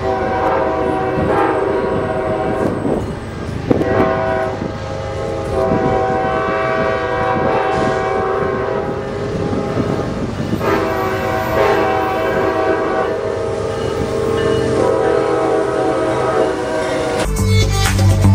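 Locomotive air horns sounding a series of long blasts over the rumble of approaching trains. Near the end music with a heavy beat cuts in.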